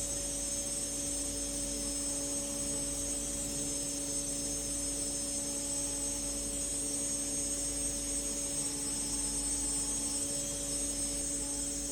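Hurco BX40i CNC machining centre milling aluminium, the spindle and cutter running steadily with a constant high whine and a hiss of cutting.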